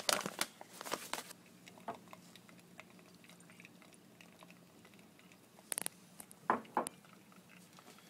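Scattered small clicks and knocks of handling around a mini espresso machine: several in the first second or so, a sharp one near six seconds and two more soon after. A faint steady hum lies underneath.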